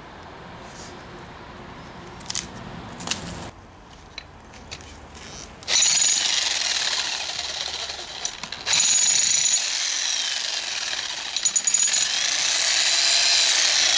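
Electric demolition hammer chiselling into a tree stump's wood and roots, starting loud about six seconds in and running with a brief pause near the middle. A few sharp knocks come before it starts.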